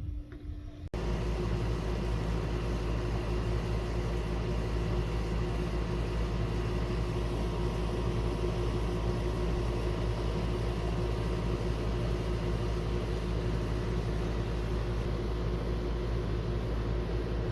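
A machine running steadily with a low rumble and a few constant humming tones, starting abruptly about a second in.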